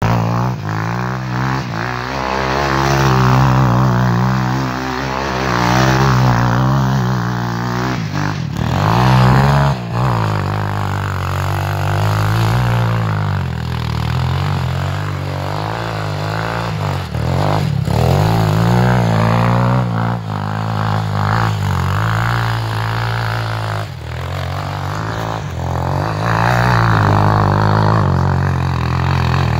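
A 250 cc quad's engine revving up and down over and over, its pitch rising and falling every few seconds, as the quad spins its wheels through snow.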